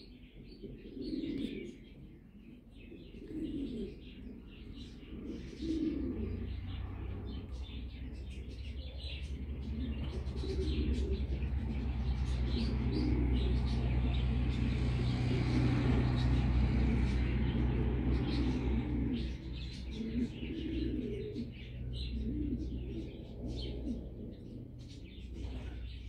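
Pigeons cooing over and over, with scattered small chirps above them. A low steady rumble builds from about a quarter of the way in, is loudest around the middle and fades near the end.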